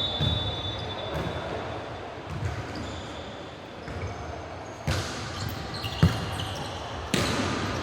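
Basketball being dribbled on a gym floor, with a run of low bounces, and sneakers squeaking on the court. There are several sharper thuds in the second half.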